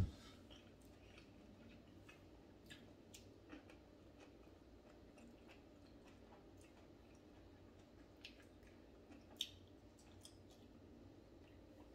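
Faint mouth sounds of a person chewing steamed okra: soft, scattered clicks and smacks. A single low thump comes right at the start, and a sharper click comes about nine seconds in.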